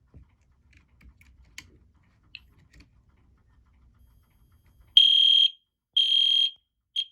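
EST Edwards Genesis fire alarm horn sounding a steady high-pitched tone in half-second blasts a second apart, the temporal-three evacuation pattern; after faint clicks, two full blasts sound and a third is cut off short.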